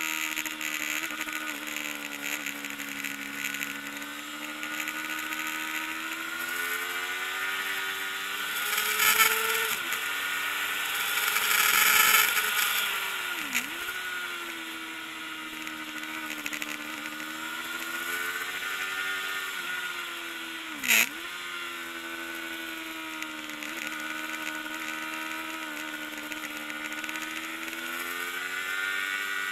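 Kawasaki ZXR400 inline-four racing engine at high revs, its pitch rising and falling continuously as the bike is ridden hard, with a loud rush of wind swelling around ten to twelve seconds in. Twice the pitch dips sharply and recovers, and a brief loud crack sounds about two-thirds of the way through.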